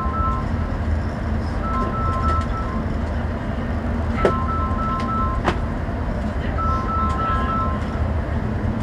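Bus engine and road noise heard from the driver's cab, with an electronic chime repeating through it: a run of short beeps alternating between two pitches, sounding about every two and a half seconds. Two sharp knocks come around the middle.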